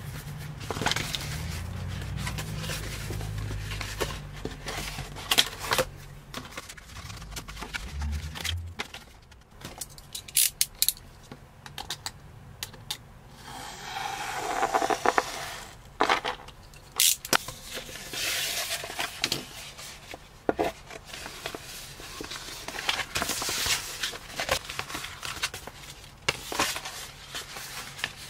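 A sheet of carbon-fibre-pattern vinyl wrap film rustling and crackling as it is handled, with scattered taps and clicks. About halfway through, a utility knife is drawn along a ruler, cutting through the film.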